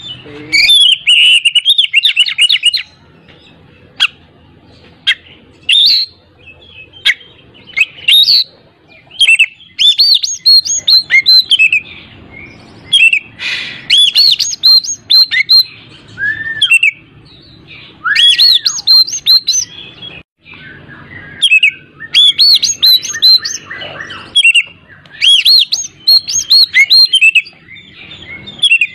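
Oriental magpie-robin (kacer) singing loudly in bursts of rapid, varied high whistles and chirps, with short pauses between phrases.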